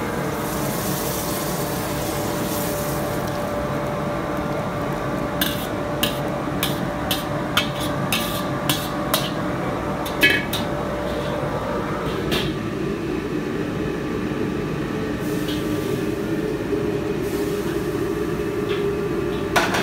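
Steady roar of a commercial Chinese wok range, with a series of sharp metal knocks and scrapes, about a dozen spread over several seconds and loudest about halfway through, as a steel wok is tipped and scraped out into a stainless steel hotel pan.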